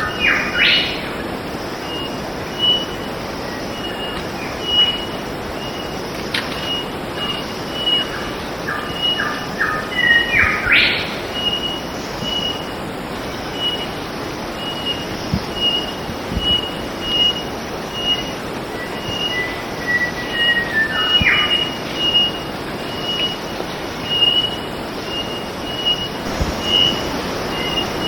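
Drab whistler singing loud whistled phrases that end in a sharp rising note, three times about ten seconds apart; one phrase opens with a run of four even notes before the rise. A short high note repeats steadily about once a second underneath, over a steady background hiss.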